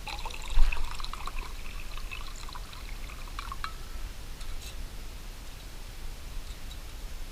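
Liquid poured from a stainless steel canteen into a metal canteen cup, splashing and trickling for about three and a half seconds before it stops. A dull bump sounds about half a second in.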